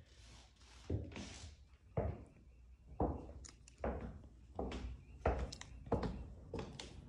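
Footsteps on a hardwood floor, dull thuds at about one step a second, with a light swish or two near the start.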